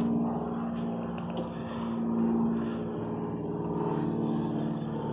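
A steady engine hum at a constant pitch, with no change in speed.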